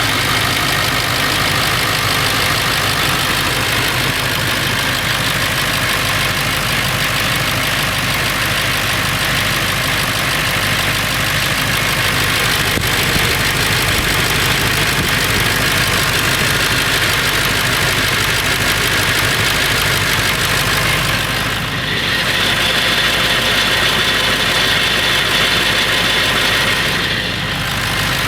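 Ford 7.3L Powerstroke V8 turbo-diesel in a 1999 F350 idling steadily with a rattle. The owner cannot place the rattle and wonders whether it is the flexplate or the engine itself.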